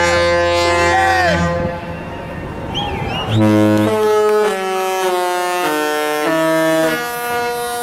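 A Disney cruise ship's musical horn. It opens with a long, low blast while voices whoop and cheer over it. After a short lull it plays a tune of stepped notes, each held a fraction of a second.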